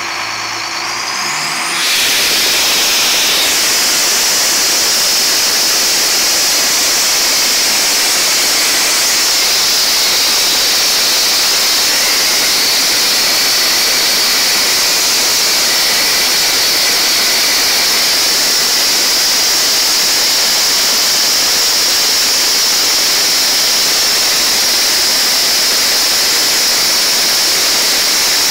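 Atlas Copco compressor running: a brief rising whine, then about two seconds in a loud, steady rushing hiss takes over and holds.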